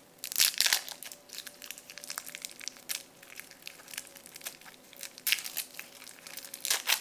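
Babybel cheese being unwrapped: its wrapper and wax coat crinkling and tearing in a run of short crackles, loudest about half a second in, around five seconds in and near the end.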